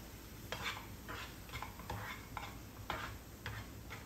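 A plastic spatula scraping and stirring grated apple frying in ghee in a non-stick frying pan, in short strokes about two a second.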